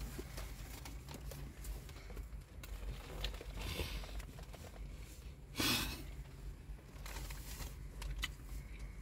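Close-up eating sounds of a doner kebab in naan wrapped in a paper cone: chewing with soft crinkling of the paper wrap, and one brief louder rustle a little past halfway.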